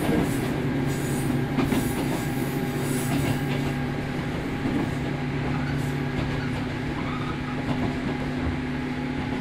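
Running sound inside a JR Kyushu 103 series 1500-subseries motor car (MoHa 103-1502) with MT55 traction motors: the motor and gear hum holds a steady pitch, so the train is at a constant speed. Clicks of the wheels over rail joints come through, mostly in the first few seconds.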